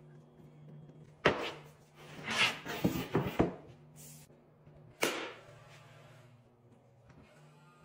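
Plywood cabinet panels being handled and set up on a workbench: a sharp knock about a second in, a run of knocks and rubbing a little later, and another knock about five seconds in, over a faint steady hum.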